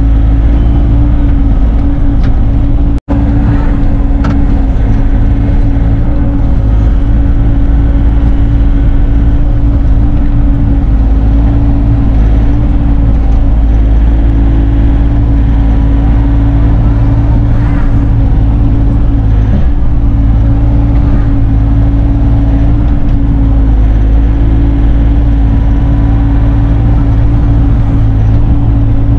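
Bobcat E42 mini excavator's diesel engine running steadily. The sound drops out for an instant about three seconds in.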